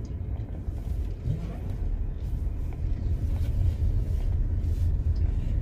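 Steady low rumble of a car creeping slowly along a dirt road, heard from inside the cabin.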